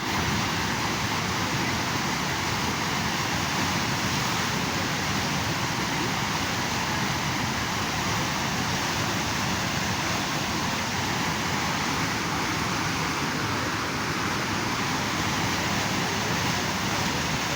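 Fast-flowing river water rushing steadily, a constant noise with no breaks.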